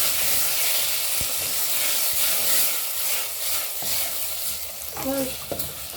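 Chopped tomatoes frying in hot oil with browned onions in a cooking pot: a steady, loud sizzle as they are stirred, easing slightly partway through.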